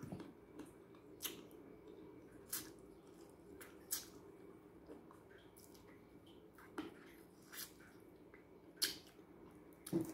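Close-up mouth sounds of a person eating by hand: chewing rice and dried salted fish, with sharp wet lip smacks and clicks every second or so, over a faint steady hum.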